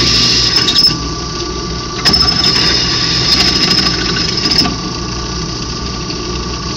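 Drill press running with its bit cutting into a thick steel plate: a high, steady squeal from the cut in two spells, breaking off about a second in and again at about four and a half seconds, over the constant hum of the press's motor.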